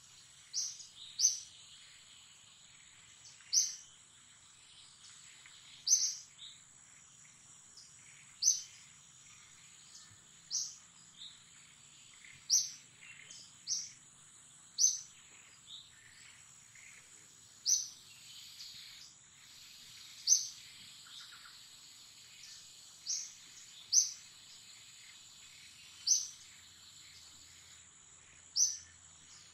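A bird repeating one short, sharp, high chirp about every two seconds, over a steady high-pitched insect drone.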